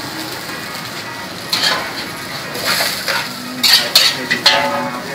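Food sizzling in hot oil in a wok. From about a second and a half in, a metal spatula scrapes and clatters against the wok several times as the crepe is worked and lifted out.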